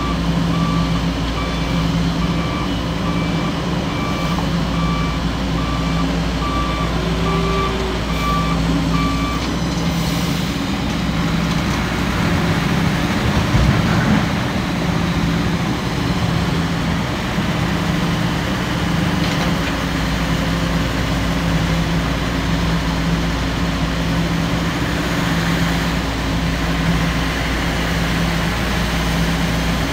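Heavy diesel engine running steadily, with a reversing alarm beeping at an even pace for about the first nine seconds, then stopping. A single knock about halfway through.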